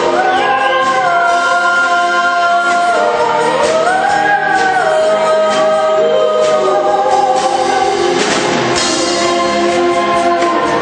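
A vocal group singing together in long held notes that slide up and down in pitch, part of a pop-song medley.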